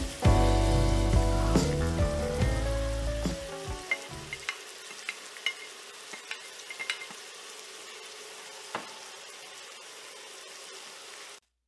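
Chicken pieces, green peppers and diced tomato sizzling in a cast-iron skillet, a steady hiss with scattered small pops. Background music plays over it for the first few seconds, then stops.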